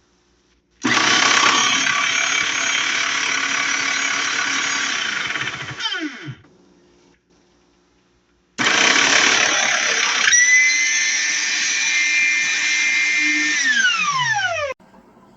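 Electric meat grinder motor switched on twice, running about five seconds each time with a loud whir. Each time it winds down with a falling pitch after being switched off.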